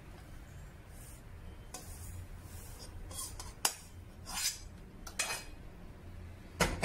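Metal spatula scraping roasted semolina out of a metal kadai. There are several short scrapes and sharp clinks of metal on metal, and the loudest knock comes near the end.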